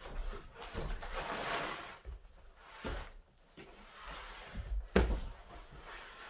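A tall cardboard-boxed refrigerator being rocked and shuffled across a wooden porch deck: rough scraping and shuffling, with a few knocks of the box against the boards. The sharpest knock comes about five seconds in.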